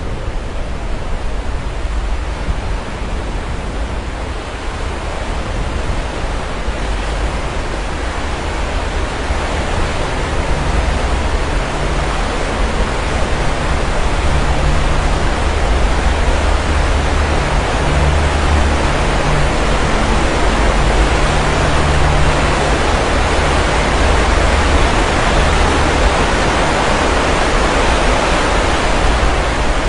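Sea surf washing continuously onto the shore, a dense rushing noise with a deep rumble underneath that swells gradually louder through the middle.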